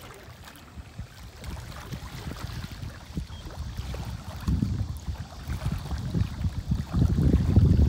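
Wind buffeting the microphone: an uneven low rumble that grows stronger from about halfway through.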